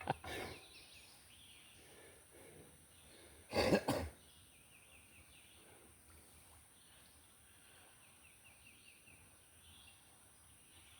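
A person coughs once, briefly and loudly, about three and a half seconds in, over quiet outdoor ambience with faint bird chirps.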